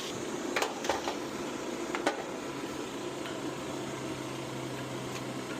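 Refrigerant recovery machine running steadily with a hum and hiss while it pulls refrigerant from the air-conditioning system into the recovery tank. A few light clicks come in the first two seconds.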